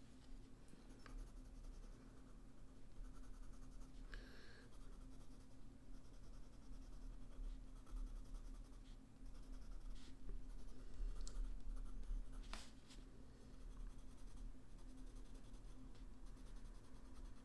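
Faint scratching of a blue coloured pencil shading on paper, with a few sharper ticks among the strokes.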